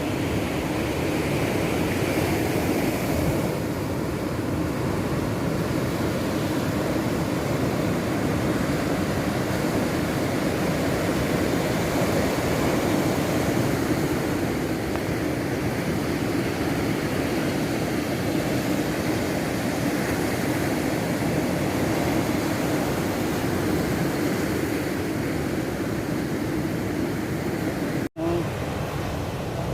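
Steady rushing noise, cut off for an instant near the end.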